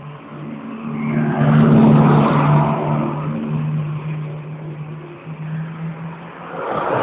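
A Suzuki GSX250SS Katana's four-cylinder engine running at a standstill. It swells in a brief rev about two seconds in, settles back, and picks up again near the end.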